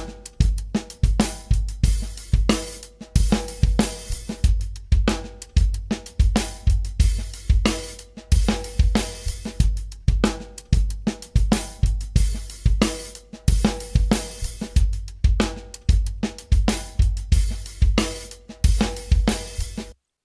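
Drum loop with kick drum, snare and hi-hats playing a steady beat, a sound example run through mid-side stereo processing. It cuts off abruptly just before the end.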